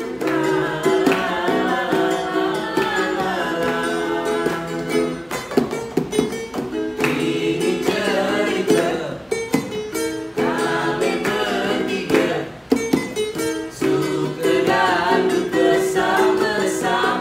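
Outro song: a singing voice over plucked string instruments.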